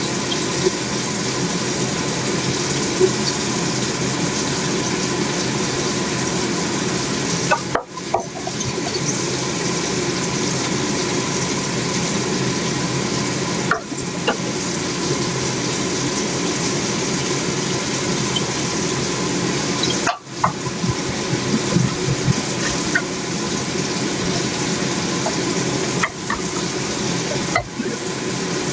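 Food sizzling steadily in a frying pan, with a few faint clinks of a utensil against the pan.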